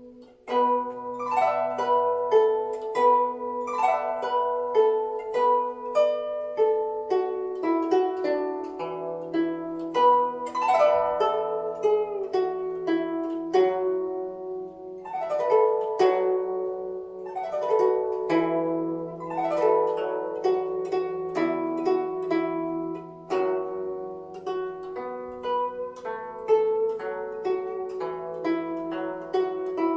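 Guzheng (Chinese plucked zither) playing a melody of plucked, ringing notes with repeated sweeping glissandi and sustained low notes underneath, starting about half a second in after a short pause.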